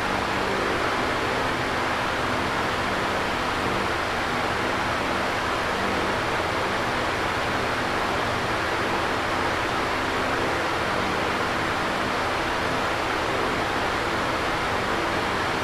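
Electric fan running steadily: an even rush of moving air, with a faint low hum underneath.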